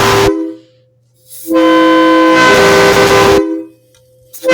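Truck/train-style air horn worked by a pull valve from a compressed-air tank at about 50 psi, sounding a chord of several steady notes in separate blasts: one cuts off just after the start, a long blast of about two seconds follows a second later, and a short blast starts near the end.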